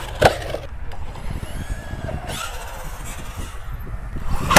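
Electric RC truggy running over grass and concrete, its motor whining faintly in short bursts, with a sharp knock about a quarter second in. Near the end a loud slam as the car comes down hard from a high jump, the landing that breaks it.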